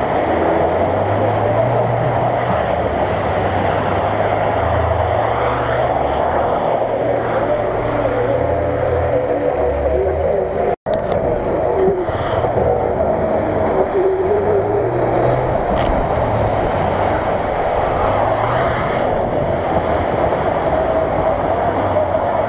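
Off-road 4x4 engines running as they drive through a mud pit, over a steady outdoor din. The sound cuts out for an instant about eleven seconds in.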